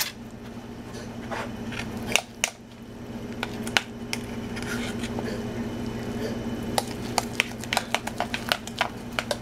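A metal utensil clicking, tapping and scraping against a stainless steel pot as mashed potatoes are worked with milk, in irregular strokes with a few louder knocks, over a steady low hum.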